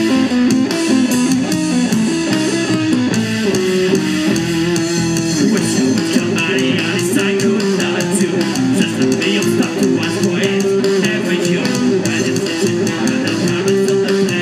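Live rock band playing loud and steady on electric guitar, bass guitar and drums, heard through the stage PA.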